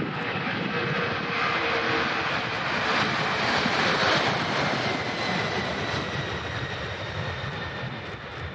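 Boeing 747's four jet engines at takeoff power as the aircraft passes, the rushing noise swelling to a peak about halfway through and then easing off, with a faint whine that falls slightly in pitch.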